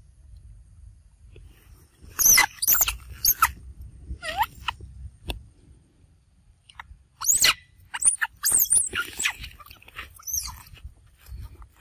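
Young macaque giving short, high-pitched squealing cries that slide in pitch, in a cluster about two seconds in and another from about seven seconds, over a low rumble.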